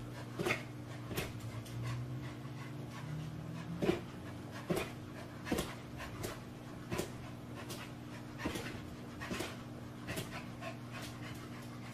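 A dog panting, a little more than one breath a second, over a faint steady hum.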